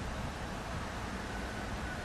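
Steady outdoor background noise with a low, uneven rumble, typical of light wind on the microphone. A faint, thin high tone comes in about two-thirds of the way through.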